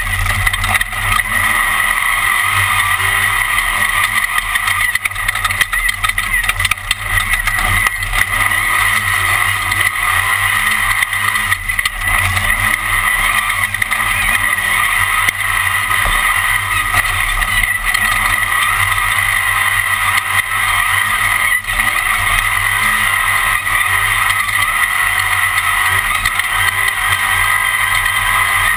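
Class 1 off-road race car's engine running hard, heard from inside the car during a fast lap, as one loud, continuous noise. Its pitch rises again and again every second or two as the driver gets on the throttle.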